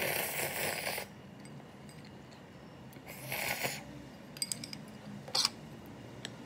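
Two breathy rushes of noise, then a few light clicks and a sharp clink of a utensil against a ceramic bowl of ramyeon about five seconds in.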